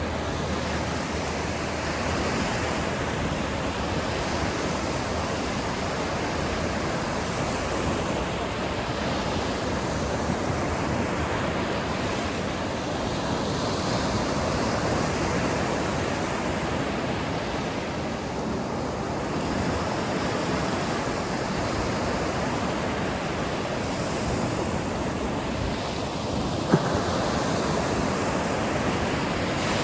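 Ocean surf washing onto the shore, a continuous rush that swells and eases every few seconds. One brief sharp click sounds near the end.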